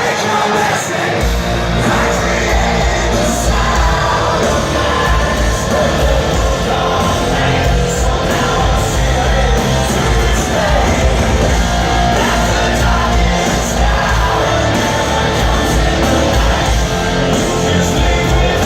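Live hard rock band playing loud, with a lead singer, heard in a large concert hall.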